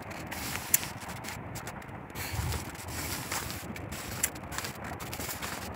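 Footsteps and rustling on a dirt path through shrubs, with scattered clicks and two sharp knocks, about a second in and about four seconds in, over a steady rushing noise.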